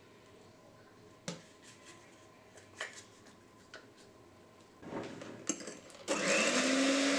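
A few sharp knocks as a yogurt pot is tapped and emptied over a glass bowl. About six seconds in, an electric hand mixer switches on and runs loudly with a steady hum, its beaters whisking cake batter.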